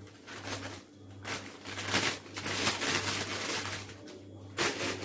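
Plastic instant-noodle packet crinkling as it is shaken out over a pan to empty the small broken noodle bits, in several rustling bursts, over a low steady hum.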